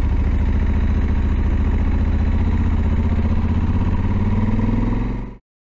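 Honda CRF1100L Africa Twin's parallel-twin engine running steadily at low revs while riding, its pitch rising slightly near the end before the sound cuts off suddenly.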